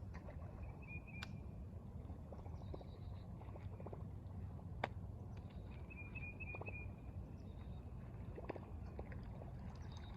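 Open-air riverbank ambience: a steady low rumble, a few scattered sharp clicks, and a bird's short high trill heard twice, about a second in and again about six seconds in.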